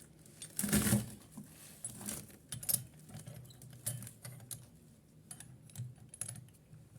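Scattered, irregular light clicks and knocks of hard objects being handled, over a faint low hum.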